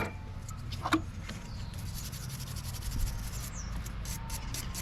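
Scrubbing a part clean by hand: a couple of seconds of rapid, scratchy rubbing strokes, then a few light clicks and taps.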